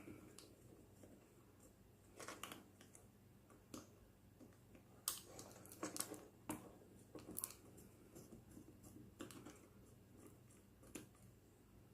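Faint, irregular clicks and light knocks of the disassembled hair dryer's plastic parts being handled, in small clusters about two seconds in, around five to six and a half seconds, and near the end.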